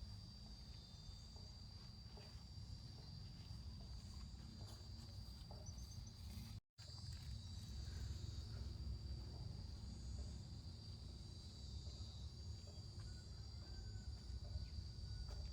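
Steady high-pitched drone of insects, over a low rumbling noise, with a brief dropout about seven seconds in.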